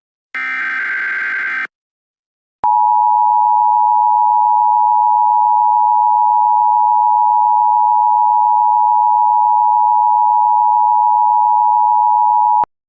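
The last of the Emergency Alert System's header data bursts, a warbling digital burst about a second long. After a second of silence comes the EAS attention signal, two steady tones sounding together near 900 Hz, held for about ten seconds and then cut off sharply. It announces that a spoken emergency alert is to follow.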